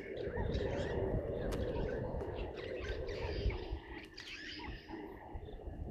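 Several wild birds chirping and calling, short overlapping chirps and whistled notes over a continuous low background rumble and hiss.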